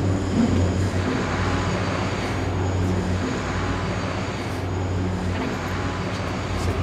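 A steady low engine hum with a wash of street noise.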